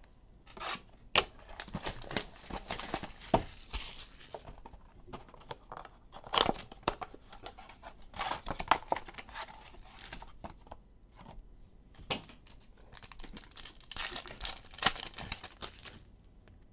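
Hands opening a cardboard Panini Mosaic basketball blaster box and tearing open its foil trading-card packs: cardboard tearing, foil wrappers crinkling, and irregular sharp snaps and rustles.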